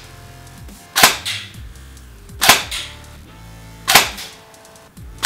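Battery-powered airsoft electric gun (AEG) firing three single shots about a second and a half apart into a chronograph, each a sharp crack with a short tail. The shots read about 285–288 fps with 0.2 g BBs on an 11.1 V LiPo.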